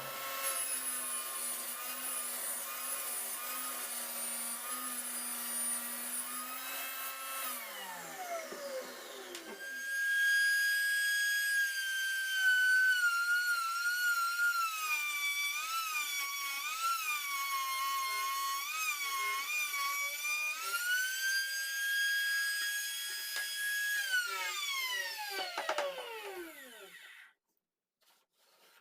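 Electric saw motor running, then winding down; it starts again with a higher whine that dips in pitch several times as it cuts through wood, then winds down near the end.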